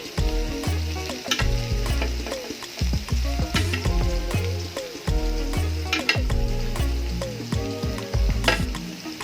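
Pork chops sizzling in a pan of butter and oil while being basted. Background music with a bass line and a regular beat plays over it.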